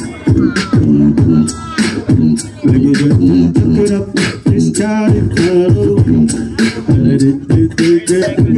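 Human beatboxing: vocal kick and snare hits in a steady beat of about two a second over a hummed bass line, with a brief sung tone midway.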